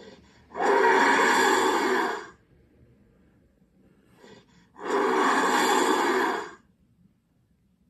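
Creature sound effect for Cerberus, an animated giant three-headed dog: two long, heavy breaths of about two seconds each, the second starting about five seconds in.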